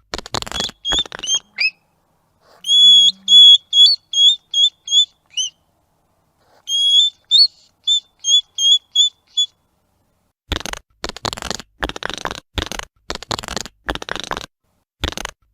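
Hedgehog sounds: three bouts of short high chirps, several a second, some ending in a quick upward or downward flick. From about ten seconds in they give way to a rapid run of short noisy puffs, the hedgehog's snuffling and huffing.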